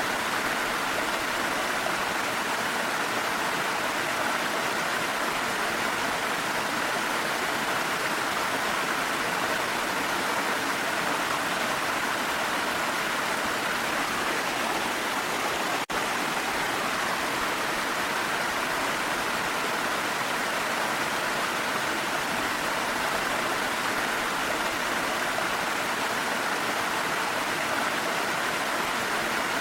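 Waterfall flowing: a steady, even rush of falling water, with a momentary dropout about halfway through.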